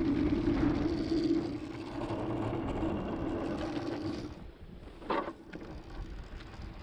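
Downhill board wheels rolling on rough asphalt with wind rumble, a steady low drone that fades in two steps as the rider comes to a stop on the verge. A single sharp knock about five seconds in, with a fainter one just after.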